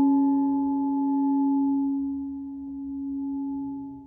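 A small hammered gong hanging from a cord, ringing on after a single strike: one steady low tone with several higher overtones, slowly dying away while swelling and fading in slow waves.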